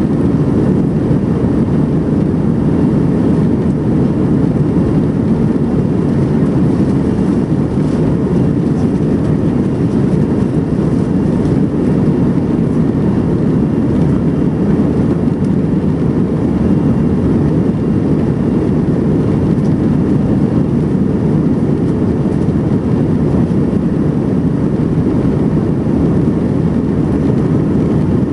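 Steady low roar heard inside the cabin of an Airbus A320-family airliner in flight after takeoff: its jet engines and the rush of air past the fuselage. The level stays even throughout.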